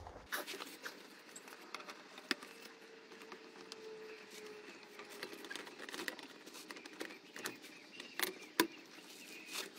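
Scattered light clicks, knocks and scrapes of the plastic radiator fan shroud being handled and pushed up into place against the radiator, with a sharper knock about two seconds in and two more near the end.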